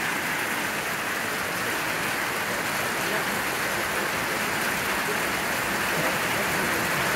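Pea-sized hail and rain drumming on a metal RV cover, heard from underneath as a steady, dense noise that drowns out the hail landing on the ground.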